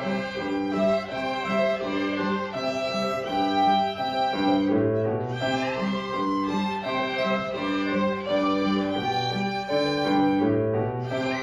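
A junior ensemble of violins playing a melody together in steady rhythm, with held bowed notes changing every half second or so.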